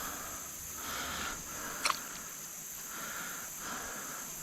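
A steady high-pitched insect chorus, with soft swishing repeating about once a second and a single sharp click about two seconds in.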